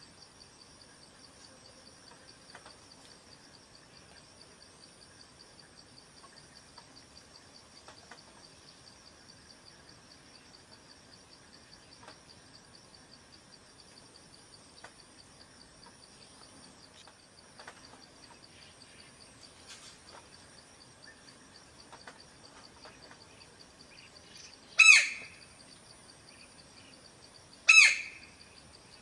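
Two loud, short calls from a White-bellied Woodpecker near the end, about three seconds apart, over a steady high, pulsing insect drone.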